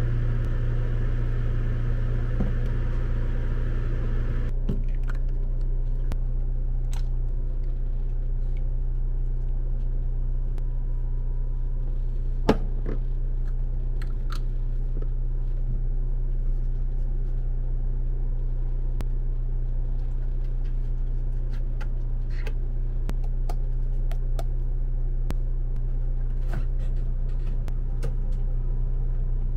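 Steady low mechanical hum with scattered light clicks and taps, one sharper click about twelve seconds in. A light hiss over the hum stops suddenly about four seconds in.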